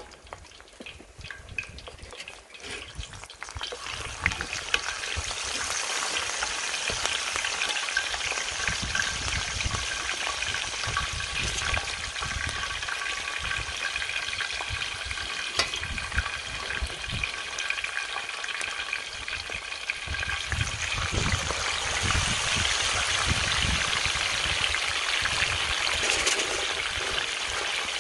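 Whole seasoned tilapia deep-frying in very hot oil in a steel disco pan, a dense, steady sizzle. It builds up about three to four seconds in as the fish go into the oil and grows louder again a little after twenty seconds.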